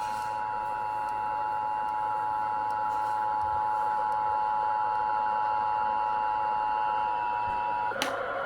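Emergency Alert System two-tone attention signal in a fake EAS alert: a steady dual-tone alarm held for about eight seconds, then cut off suddenly with a click near the end.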